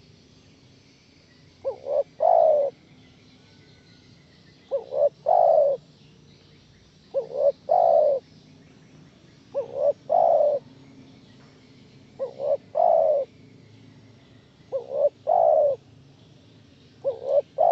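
Spotted dove cooing: a phrase of two short quick coos and then a longer, louder coo, repeated about every two and a half seconds, seven times.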